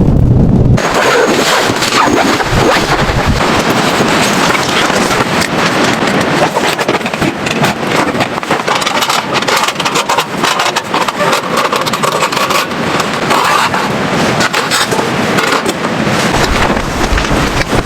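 Strong blizzard wind gusting over the microphone. Less than a second in, a low rumble gives way suddenly to a loud hiss full of rapid crackling and rustling.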